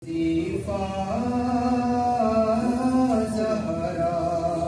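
A young man's solo voice chanting a manqabat, a devotional poem, unaccompanied into a microphone, with long held notes that slide from one pitch to the next.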